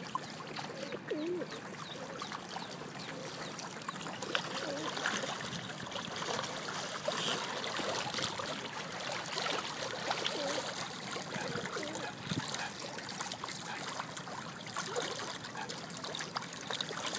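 Lake water splashing and lapping as a mute swan, mallards and tufted ducks dabble and peck at seed on the surface, with a steady run of small splashes.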